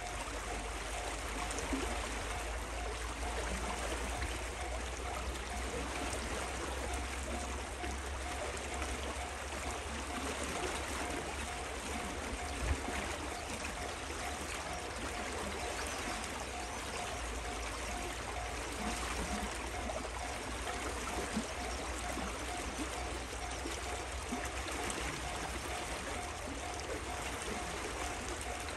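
Steady rushing background noise like running water, with a low rumble underneath and a faint, evenly repeating note; one small knock about halfway through.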